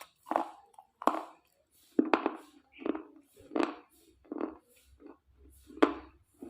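Brittle slate pieces crunching close to the microphone: about seven sharp crunches, roughly one a second, each trailing off quickly.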